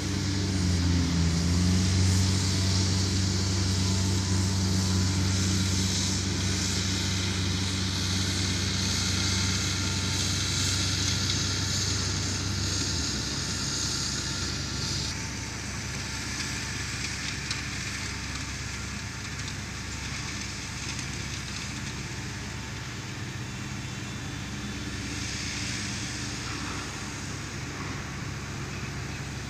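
A John Deere tractor pulling a mower runs at a distance, a steady low engine hum under a steady hiss. The engine hum drops out a little under halfway through as the tractor moves away, leaving the hiss.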